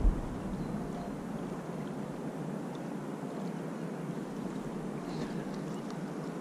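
Steady rushing of a fast-flowing river's current, with a brief low bump at the very start.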